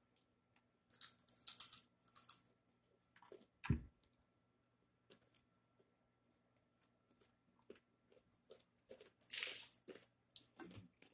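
Crispy pork skin crackling and crunching in short irregular bursts as it is broken up and chewed, with one thump about four seconds in.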